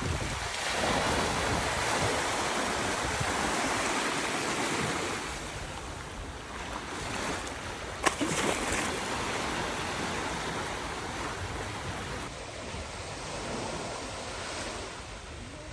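Sea waves washing onto the shore: a wash of surf that swells over the first few seconds, then eases to a steadier hiss. A single sharp click about eight seconds in.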